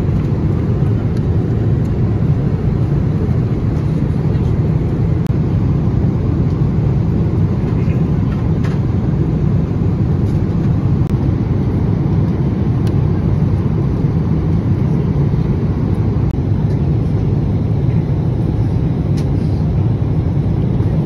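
Steady airliner cabin noise: the even, low rumble of a jet in flight, with a few faint small clicks over it.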